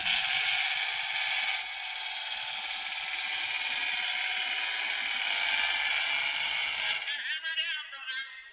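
Diesel pickup engine running hard at full throttle as it drags a weight-transfer pulling sled; it comes in suddenly and drops off about seven seconds in.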